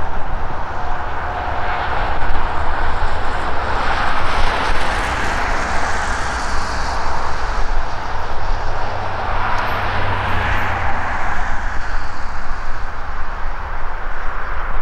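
A steady, loud rushing mix of the C30-M diesel locomotive running as it draws away along the track and traffic passing on the highway beside the line, swelling about four seconds in and again about ten seconds in.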